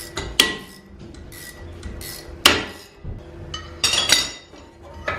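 Hand tools clinking and knocking on metal while working loose a seized brake caliper fitting: a handful of sharp metallic strikes, the loudest about halfway through and a quick cluster of clanks shortly after.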